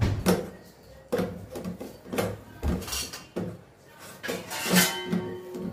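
A hand mixing grated paneer and potato filling in a stainless steel bowl: irregular scrapes and light knocks of fingers and food against the metal, with a short ring from the bowl near the end.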